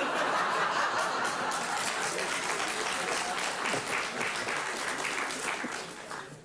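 Studio audience applauding a joke, the applause fading away near the end.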